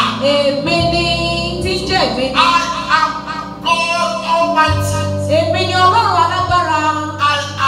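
Church worship music: singing voices over instrumental backing, with held low notes that shift a couple of times.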